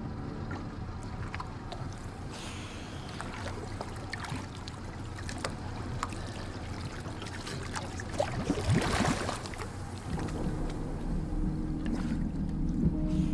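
Water sloshing and splashing against a small boat's hull, with scattered knocks and a louder splash about nine seconds in.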